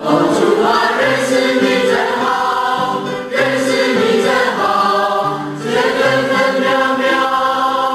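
A choir singing a hymn in several parts, holding long chords, with short pauses between phrases about three and five and a half seconds in.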